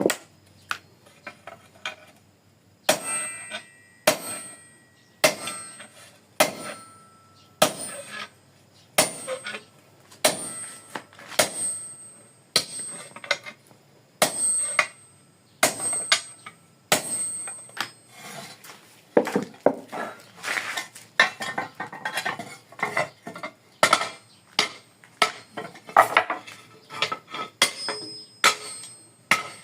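Iron sheet being cut by hand with sharp, ringing metal-on-metal strikes. They come about one a second at first, then faster and more irregular in the second half.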